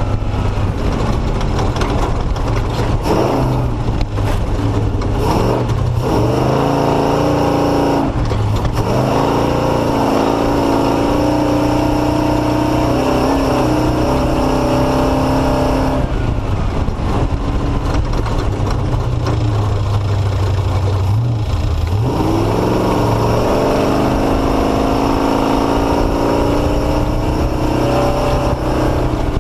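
Off-road race vehicle's engine revving up and down repeatedly as it picks its way through slow, rough ground, with sharp knocks and rattles in the first several seconds.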